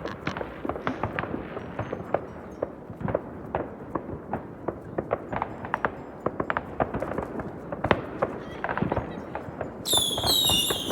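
New Year's fireworks and firecrackers going off, many irregular overlapping cracks and bangs. Near the end a firework gives a loud, high whistle that falls slightly in pitch.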